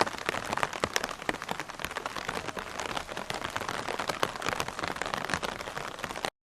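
Rain falling on an umbrella canopy: a dense, steady patter of many individual drops striking the fabric. It cuts off suddenly near the end.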